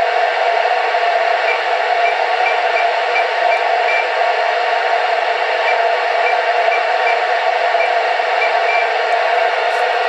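Steady FM static hiss from an Icom IC-2720 dual-band transceiver's speaker, its squelch open on the 70 cm downlink of the SO-50 amateur satellite. Only noise comes through and no satellite signal is heard, because the antenna is not suited to satellite reception.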